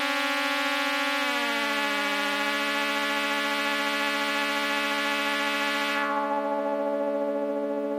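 MFOS Weird Sound Generator synthesizer module sounding a steady electronic drone of several tones. Just after a second in the pitches slide down and settle, and about six seconds in its bright upper end suddenly drops away as a knob is turned.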